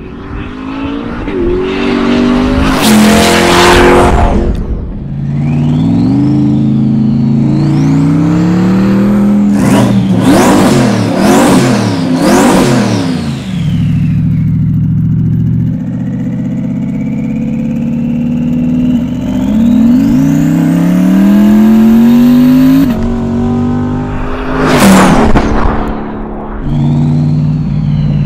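Twin-turbocharged V8 of a C8 Corvette accelerating hard through several gear changes, its note climbing and then dropping at each shift, with a high whistle rising over it. Three louder, harsher stretches come near the start, in the middle and near the end.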